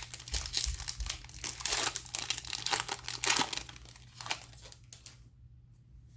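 Foil trading-card pack torn open and its wrapper crinkled for about three and a half seconds, followed by a few light ticks.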